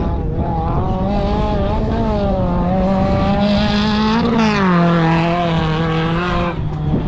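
Off-road competition vehicle's engine revving hard and held high, its pitch wavering, then dropping to a lower steady note about halfway through and easing off near the end.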